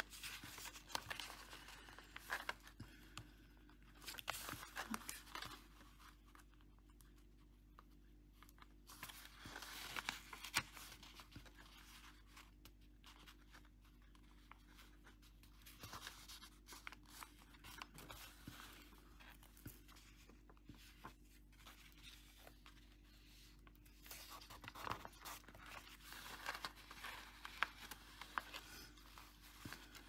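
Faint paper handling: stiff paper pocket cards rustling and crinkling as they are lifted, flipped and pressed flat by hand, in a few short bursts of activity.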